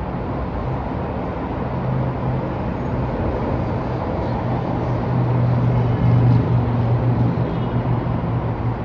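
Downtown city street traffic ambience: a steady wash of road noise with a nearby vehicle's low engine hum that builds about two seconds in, is loudest around the middle, and eases off near the end.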